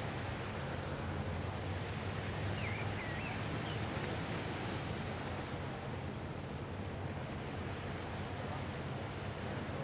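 Steady outdoor background noise: a constant low hum under an even hiss, with a few faint short chirps about three seconds in.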